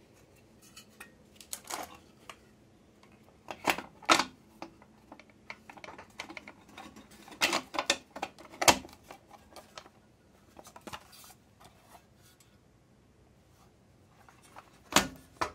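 Plastic rear light unit parts handled and set down on a steel workbench: scattered clicks and knocks, the sharpest about 4 seconds in, around 7.5 to 9 seconds, and near the end.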